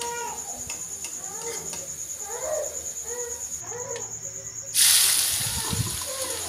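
Grated raw potato hitting hot oil in a kadhai: a sudden loud sizzle just before five seconds in that slowly dies down. Repeated short animal calls sound in the background before it.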